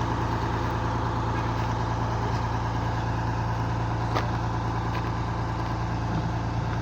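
Heavy engine running steadily at an even speed, with one sharp click about four seconds in.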